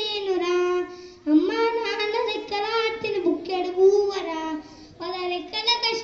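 A young boy singing solo into a microphone, no accompaniment heard: long held notes that bend in pitch, with two short pauses, about a second in and near five seconds.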